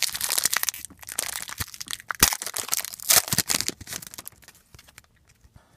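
Wrapper of a 2014 Prizm football card pack being torn open and crinkled: dense crackling and tearing for about four seconds, dying away near the end.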